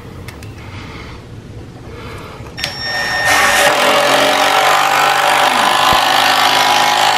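Cordless impact driver sinking a screw into a 2x6 pine board. Its loud, rapid hammering starts about three seconds in.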